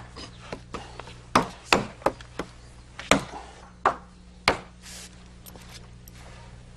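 Wooden rafter boards knocking against one another as a stack of rafters on sawhorses is shifted and pulled into line: a dozen or so sharp, irregular knocks, thinning out near the end.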